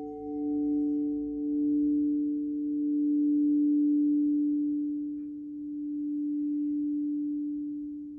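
Crystal singing bowl ringing on after being struck: a pure, steady low tone that slowly swells and fades, with a second, higher tone dying away partway through.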